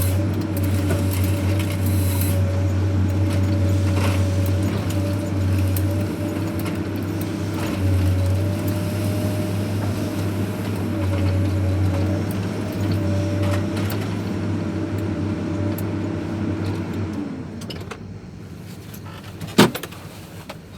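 Heavy diesel engine of a forestry machine running steadily with a constant low drone, dying away about three-quarters of the way through, followed by a single sharp knock near the end.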